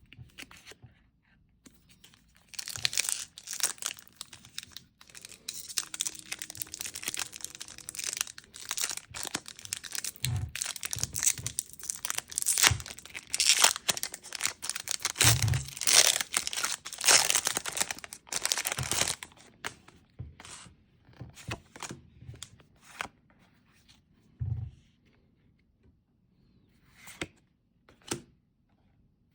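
Foil wrapper of a Pokémon trading card booster pack being torn open and crinkled in a dense, crackling run that lasts most of the first two-thirds. It then gives way to short, separate rustles and taps.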